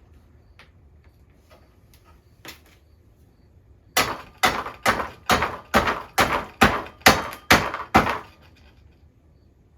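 Ten sharp, evenly spaced knocks, about two a second, as parts of a storage rack are struck to seat them, preceded by a few light clicks of parts being handled.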